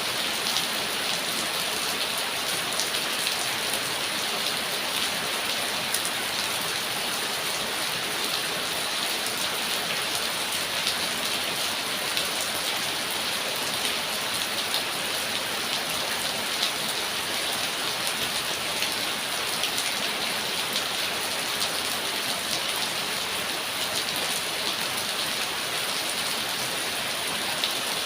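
Steady rain falling: an even hiss, with scattered sharper ticks of single drops landing.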